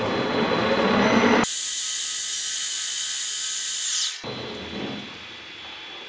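Metal lathe running, its tool taking a light finishing pass along a spinning shaft to bring the diameter down to 1.290 in, with a loud high hiss from about a second and a half in. The hiss cuts off suddenly a little after four seconds as the lathe stops, followed by a few soft handling sounds.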